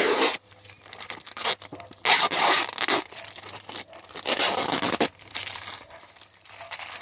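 Parcel packaging being handled and torn open: irregular tearing and crinkling, loudest in a long rip of a few seconds in the middle.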